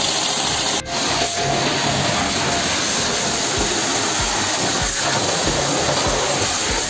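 Mechano 2200-watt, 160-bar pressure washer running, its jet hissing steadily against a motorcycle's exhaust and rear wheel, with a brief break about a second in.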